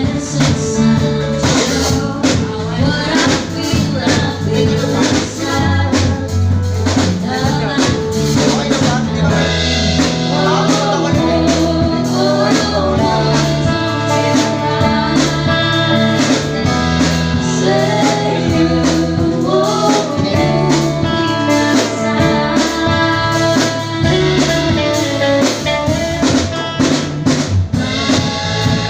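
Live band playing a song during a sound check: drum kit keeping a steady beat under bass and singing.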